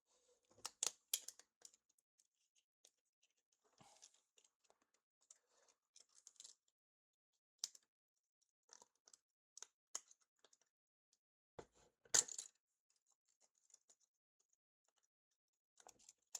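Sparse small clicks and taps of hand tools and tiny metal parts while an iPhone is taken apart. They come in a cluster about a second in and the loudest about twelve seconds in, with quieter ticks between.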